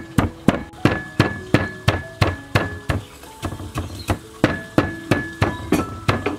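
Wooden pestle pounding in a wooden mortar: steady, evenly spaced thuds, about three a second.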